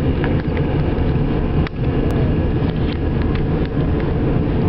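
Steady low rumble of a moving car heard from inside the cabin: engine and tyres on the road.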